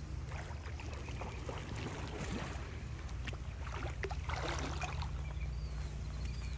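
Water splashing and sloshing as a hooked animal thrashes at the surface against a fishing line, with one longer splash about four seconds in. Wind rumbles on the microphone.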